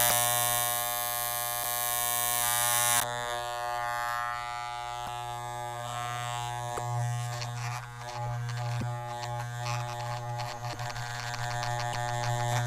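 Electric hair clipper running with a steady buzz. A loud hiss rides over it for the first three seconds and stops suddenly, then irregular crackling ticks come through in the second half.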